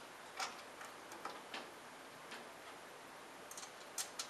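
Light, irregular metallic clicks of steel lock washers and nuts being fitted by hand onto bolts through a vehicle firewall, over a faint steady hiss. The loudest clicks come about half a second in and twice near the end.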